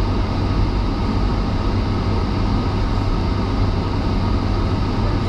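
Steady road and engine noise of a moving car heard from inside the cabin, a constant low drone with tyre hiss.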